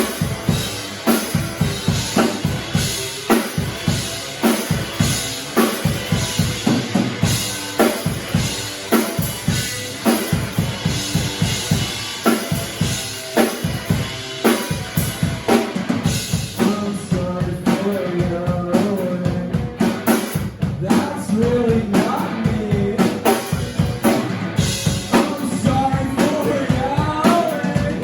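Rock band playing a song, the drum kit loudest with steady, evenly repeating kick and snare hits; about halfway in, a wavering melodic line comes in over the drums.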